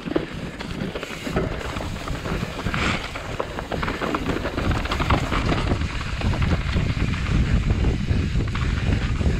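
Wind buffeting the microphone over a steady low rumble, with frequent small rattles and knocks.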